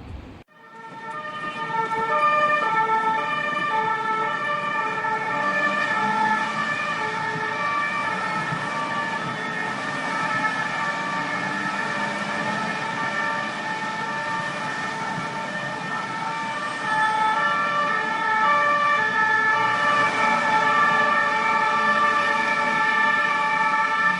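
Emergency vehicle siren sounding an alternating two-tone pattern over traffic noise. It starts abruptly and gets louder past the middle.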